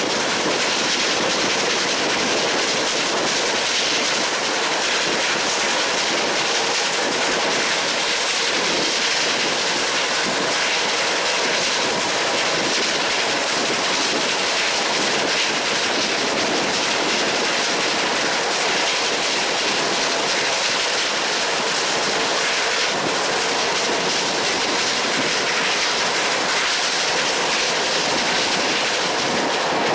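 Passenger train running steadily at speed, a constant rushing rumble of wheels on the rails, heard from a carriage window.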